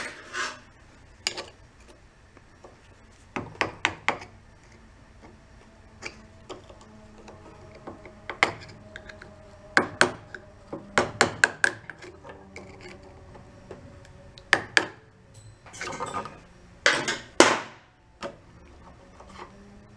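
Scattered metal clicks and clinks, some in quick clusters, of hand tools working a C-clip off a Toro Personal Pace mower's drive wheel and taking apart the wheel's ratchet gear.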